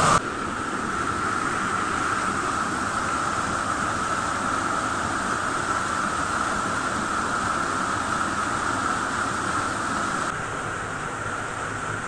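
Waterfall pouring into a rock pool: a steady rushing of water that turns a little duller about ten seconds in.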